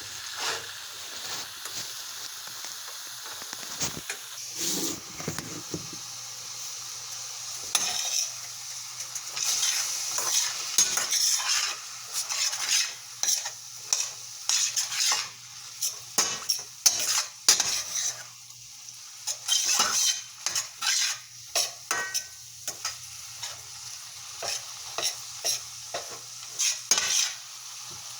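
Food sizzling in a frying pan while a utensil stirs and scrapes it, with frequent irregular clinks of the utensil against the pan.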